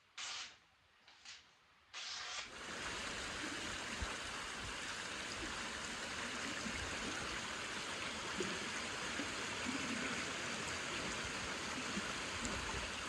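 A few short rasping strokes of sandpaper worked by hand over an African blackwood knife handle. About two seconds in, these give way to the steady rush of a shallow creek running over rocks.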